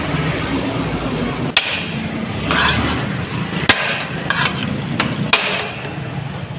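Three sharp knocks, spaced about two seconds apart, over a steady background of street noise.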